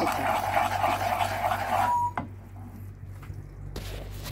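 Butter-and-sugar caramel bubbling in a pan as a wooden spatula stirs it; the sound stops abruptly about two seconds in, followed by a few faint knocks.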